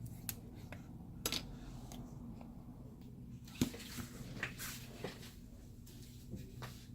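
Scattered light clicks and taps of a phone and small tools being handled on a work surface, about half a dozen spread through, over a faint steady low hum.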